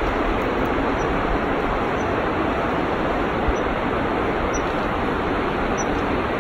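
Steady rushing of a mountain river, an even noise without a break.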